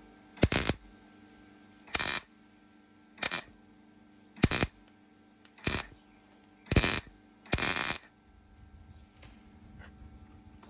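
Welder striking an arc in seven short bursts about a second apart, the last two held a little longer: tack welds filling a drilled-out rivet hole in a car's body panel.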